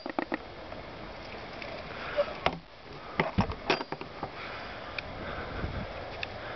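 A few light knocks and clicks over a steady low rustle.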